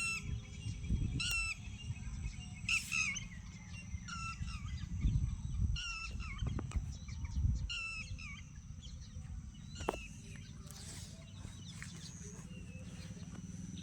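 Birds calling in short repeated chirps, several in the first ten seconds, over a steady low rumble.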